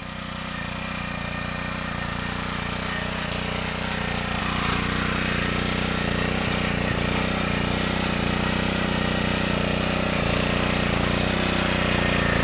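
Honda F300 mini tiller's small petrol engine running steadily under load as its rotary tines dig through soil, growing gradually louder.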